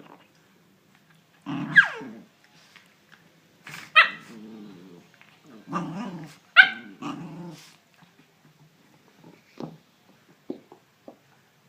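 A dog growling and giving short barks and yips in three bouts, one sliding down in pitch, followed by a few short clicks.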